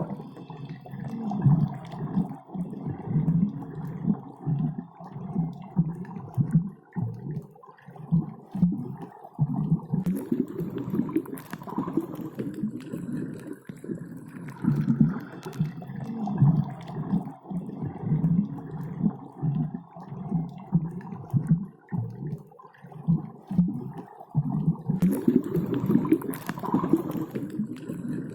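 Underwater sound of diving: muffled bubbling and gurgling water that comes in irregular low surges, with brighter hissing stretches about ten seconds in and again near the end.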